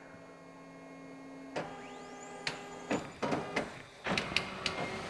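Office photocopier running a copy reduced to 50%: a steady motor hum with a few fixed whining tones. From about a second and a half in comes a string of mechanical clicks and clunks.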